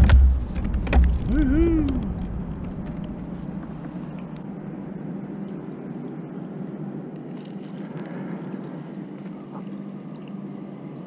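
Wind buffeting the microphone for about the first two seconds, then a steady low hum until the end.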